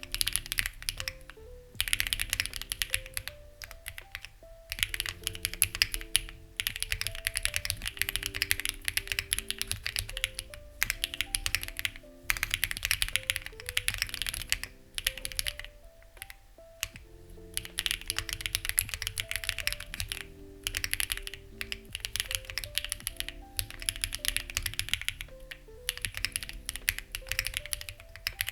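Typing on a Lucky65 v2 mechanical keyboard with stock, unlubed HMX Ziwei switches and CMK-profile keycaps, in runs of quick keystrokes a few seconds long with brief pauses between. Soft background music with a slow stepping melody plays under the typing.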